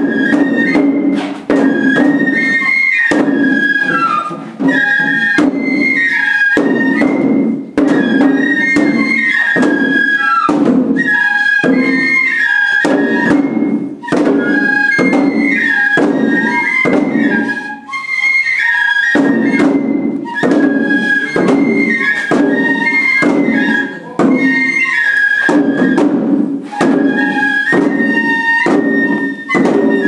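Japanese bamboo flute (shinobue) playing the lion-dance melody over the dancers' waist-worn taiko drums beaten in a quick, steady rhythm, with brief pauses between phrases.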